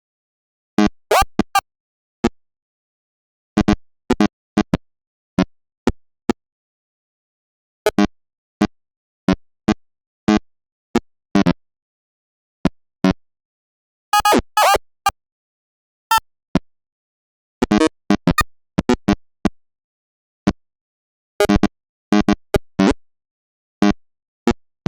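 Short, odd sound effects popping up one after another out of dead silence at irregular intervals, each lasting only a fraction of a second, some with pitched or gliding tones, like plops and synth blips. A denser cluster comes about halfway through.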